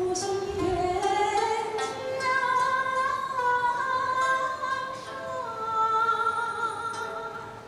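A woman singing long held notes in a slow song, accompanied by a yangqin (Chinese hammered dulcimer).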